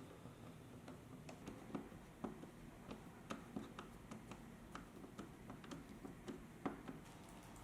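Faint, irregular light clicks and taps, a few each second, with a sharper click a little before seven seconds in: small hard parts being handled and set down.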